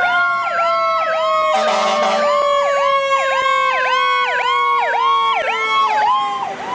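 Fire engine siren: a fast up-and-down yelp repeating about twice a second over a long tone that slowly falls in pitch, with a brief hiss about two seconds in.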